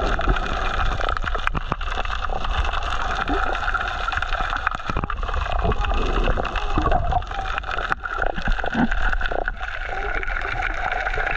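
Water gurgling and sloshing close to the microphone, with many small clicks and knocks scattered through it.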